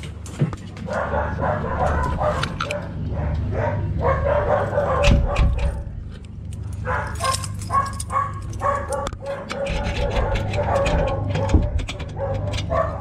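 A dog whining and yipping in repeated pitched calls, mixed with clicks and clanks from a stainless-steel kennel door being handled.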